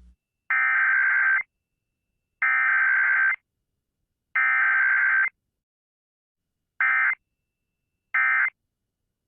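EAS SAME digital header: three bursts of data tones, each about a second long and about two seconds apart, then two much shorter bursts of the same tones near the end.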